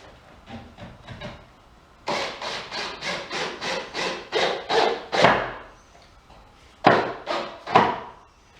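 Repeated strokes of a hand tool working wood, about three a second for several seconds, then three louder strokes near the end.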